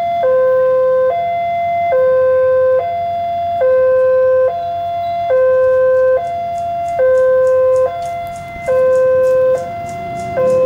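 Electronic two-tone railway warning alarm, steadily alternating a higher and a lower tone, each held just under a second, signalling an approaching train. Near the end, the low rumble and clicking of the approaching train join in.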